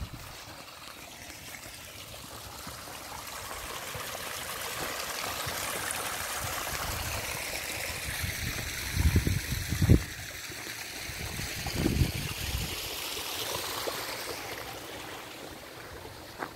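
Water trickling over rocks in a small stream. It grows louder for several seconds and then fades, with a few low thumps on the microphone around the middle.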